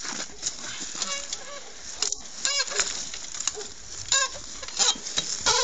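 Several short voiced cries from the riders as they strain to move a dirt bike by hand, over scraping and scuffing of boots and tyres on loose, crumbly tufa. The engine is not running.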